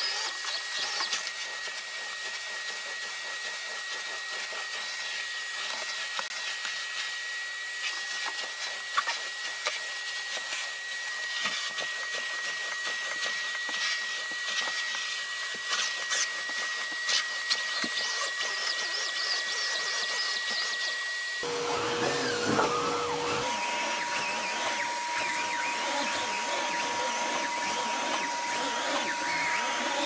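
Numatic cylinder vacuum cleaner running with its Airo Brush floor head pushed over carpet: a steady hiss of suction under a high whine, which drops to a lower whine about two-thirds of the way through.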